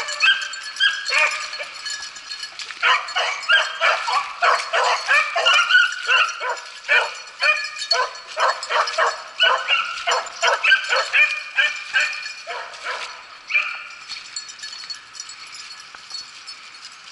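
Beagles baying and yelping while running a rabbit, with quick, repeated calls through most of the stretch. After a longer drawn-out bay they fade out near the end.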